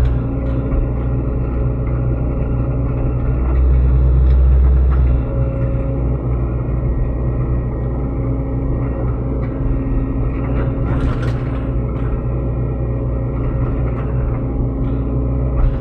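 Diesel engine of a Sany SY75C mini excavator running steadily while it works. It swells louder for a second or so about four seconds in, and a short crackling burst comes about two-thirds of the way through.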